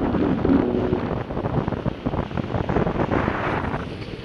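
Wind buffeting the microphone over the rough rumble of downhill skateboard wheels rolling on cobblestones and wet road. It fades near the end as the board slows.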